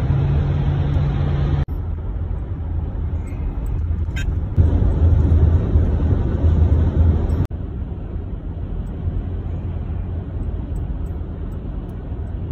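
Road noise inside a minivan's cabin at highway speed: a steady low rumble of tyres, engine and wind. It changes abruptly twice where short driving clips are joined.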